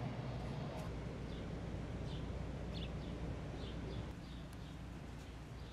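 Street ambience: a steady low hum with small birds chirping now and then; the hum shifts about four seconds in.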